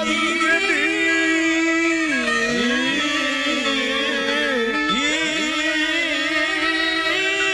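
Live Haryanvi ragni folk music with harmonium accompaniment: a steady bed of held notes under a melody of long, sliding notes, with hardly any drumming.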